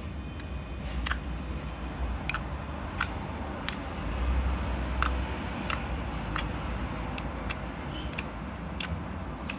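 Slime squeeze toy being worked by hand, giving sharp little clicks or pops about every two-thirds of a second over a low rumble from handling.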